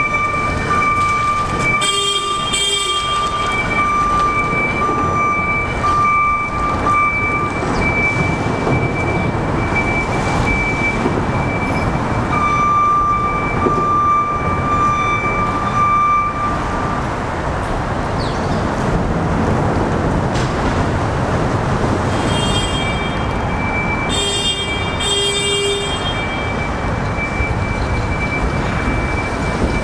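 Railcar mover's engine running steadily as it works along street track, with a steady high tone sounding on and off. A horn sounds briefly twice, near the start and again near the end.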